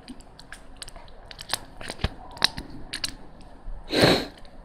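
Plastic Lego bricks clicking and rattling as they are handled and snapped together: a string of light, sharp clicks, with a short, louder burst of noise about four seconds in.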